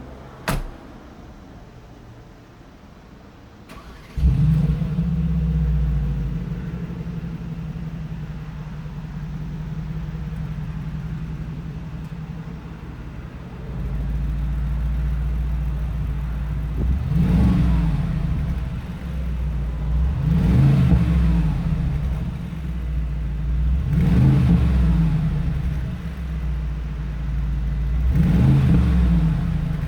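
2019 Mercedes-AMG G63's 4.0-litre twin-turbo V8 starting up, flaring and then settling to a steady idle, then revved four times, each rev rising and falling in pitch. A single sharp click comes just before the start.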